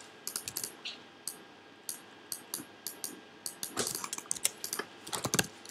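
Computer keyboard keys and mouse clicks, scattered single taps and short quick runs of taps with pauses between.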